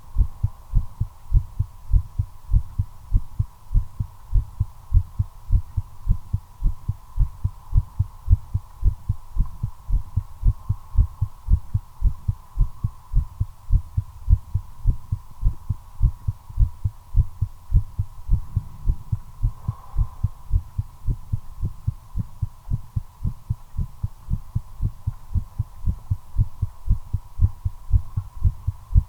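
Human heartbeat: a fast, regular run of low lub-dub thuds, raised by nicotine during cigarette smoking, over a faint steady hum.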